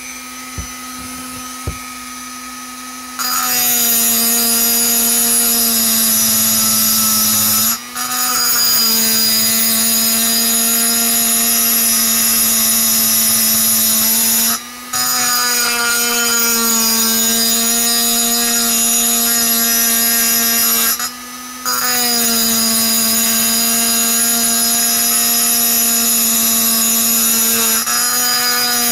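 Handheld rotary tool with a mounted grinding stone, its motor whining steadily as the stone grinds and smooths the aluminium exhaust port of a two-stroke chainsaw cylinder. It runs quieter for about the first three seconds, then grinds much louder, with three short breaks where the stone is lifted off.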